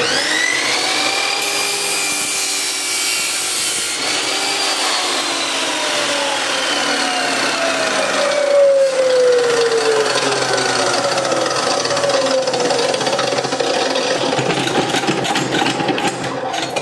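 INGCO 2350W abrasive cut-off saw motor switched on and running with no load: a quick rising whine as the 14-inch disc spins up, then a steady loud whir whose whine slowly drops in pitch from about four seconds in. It cuts off at the very end.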